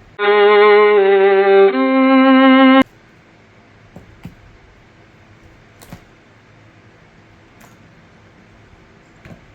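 A short violin music sting of three held notes with vibrato, the second a little lower and the last one higher. It cuts off abruptly under three seconds in, leaving faint room tone with a few soft clicks.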